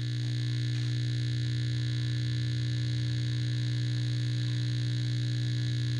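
Sharp SG-618 surface grinder running with a steady electric motor hum, coming up to speed within the first half-second, as it runs to test its repaired auto-lube pump and lines.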